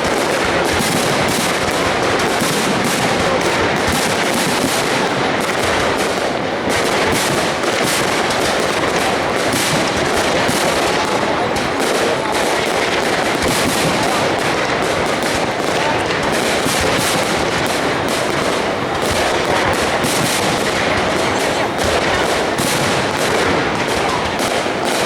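Aerial fireworks bursting in rapid, unbroken succession: a dense, steady rattle of cracks and bangs with no pause.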